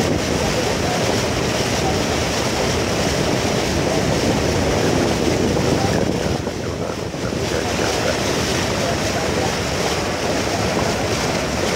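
Speedboat under way on a river: a steady rush of water along the hull and the engine running, with wind buffeting the microphone, easing briefly a little past halfway.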